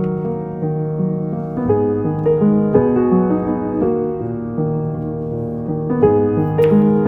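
Background piano music, a gentle melody of steady notes, with a single light click near the end.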